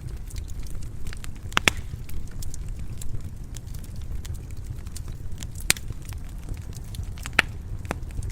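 Wood fire burning in a fireplace: a steady low rumble of the flames with scattered sharp crackles and pops, three of them louder, about a second and a half in, near six seconds and near the end.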